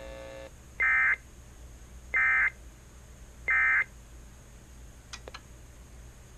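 Emergency Alert System end-of-message signal: three short bursts of SAME digital data tones, each about a third of a second long and spaced a little over a second apart, signalling that the alert has ended. Two faint clicks follow about five seconds in.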